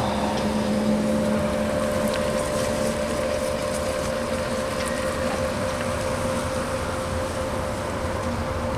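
Steady mechanical hum of a motor running, with two constant tones, one low and one higher, over an even rushing noise; the lower tone fades for a while in the middle.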